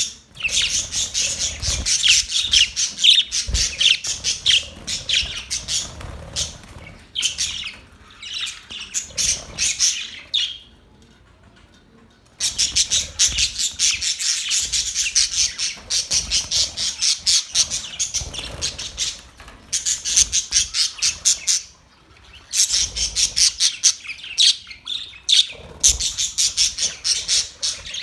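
Pet budgerigars chattering: rapid, overlapping high chirps and squawks, with a pause of about two seconds near the middle.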